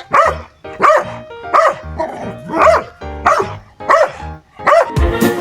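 A dog barking over and over, about two barks a second, over soft background music. Near the end, loud upbeat music with a strong drum beat takes over.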